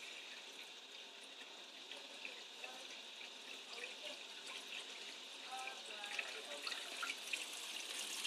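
Faint, steady running and trickling water with small drips in a homemade darkroom print washer tank as it fills. The siphon outlet is only trickling, not yet at full siphon flow.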